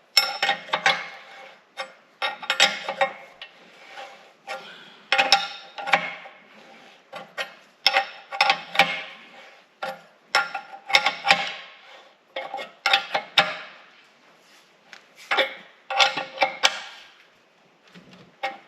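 A wrench tightening the tractor's threaded detent shaft into the main case: repeated metallic clicking and clinking in short bursts every second or two, with a ringing tone to each stroke.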